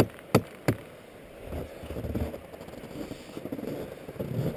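Footsteps on snow-covered river ice, with two sharp snaps within the first second, then steps crunching over a low rumble of the river running underneath.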